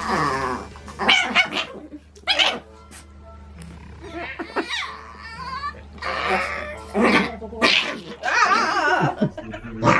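Long-haired Chihuahua vocalizing in several short bouts as it play-fights, snapping at a hand.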